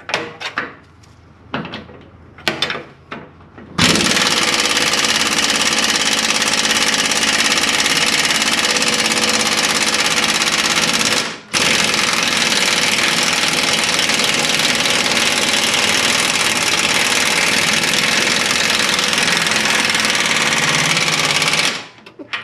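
Impact wrench hammering on a seized 21 mm lower control arm nut and bolt, rusted fast in its bushing, in two long loud bursts of about seven and ten seconds with a brief stop between them. A few metal tool clinks come before it starts about four seconds in.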